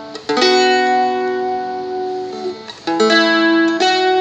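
Seagull Merlin, a four-string diatonic strumstick-style dulcimer, strummed in a slow phrase. One chord is struck about a third of a second in and left to ring for over two seconds, then two more chords are strummed near the end.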